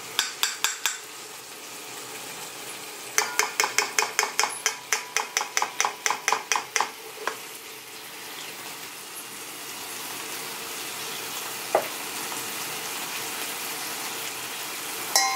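A metal fork scraping and tapping against a nonstick wok, with a run of sharp taps, about four a second, from about three seconds in to about seven seconds in. Then butter melting in the hot pan with a soft steady sizzle that grows a little louder, broken by a single click.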